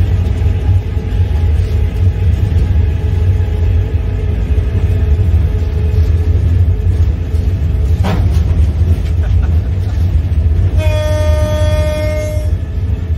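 Steady low rumble of a locomotive running, heard from its cab. A sharp knock comes about eight seconds in, and near the end the locomotive's horn sounds one blast of about two seconds.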